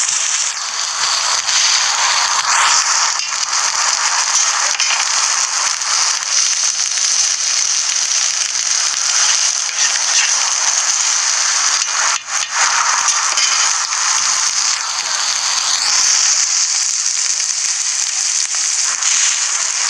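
Eggs and shredded ham frying on a flat-top griddle, a steady crackling sizzle.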